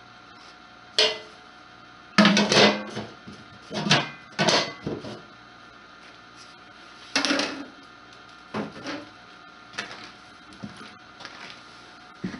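Sheet-metal stove pipe and a metal ash can clanking and rattling as they are handled: a run of sharp metallic knocks, loudest in a cluster a couple of seconds in and again around the middle, then lighter knocks.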